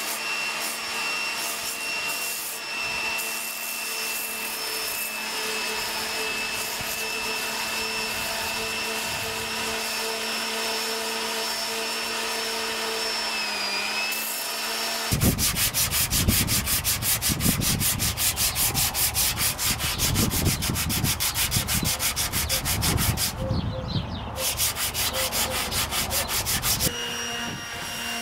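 Electric orbital sander sanding the epoxy-filled fibreglass rudder. For about the first half the motor runs at a steady pitch, with a brief dip under load. Then it turns louder and pulsing, with a heavy rumble as the pad is worked across the flat face, and settles back to a steady run near the end.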